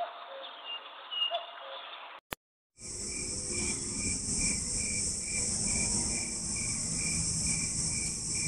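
A few bird chirps, cut off by a click and a moment of silence. Then a steady high-pitched insect drone with a cricket chirping about three times a second over a low rumble.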